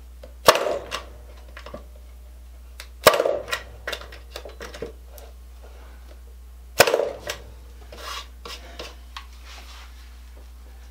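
Corded Craftsman Industrial electric brad nailer firing three times, each a sharp snap followed by a short rattle as a brad drives into pallet wood, with lighter clicks of the tool being handled in between.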